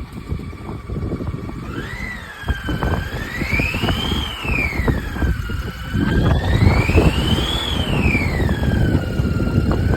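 Mercedes-Benz CLA250 engine with a high-pitched whine that rises and falls smoothly, about every three and a half seconds, as the revs go up and down, over a rough rumble. The whine is the bad engine noise the car is showing.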